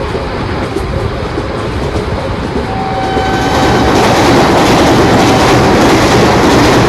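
A train passing close by, its wheels and cars running loud, growing louder about three seconds in and staying loud. A short steady whine sounds just before the rise.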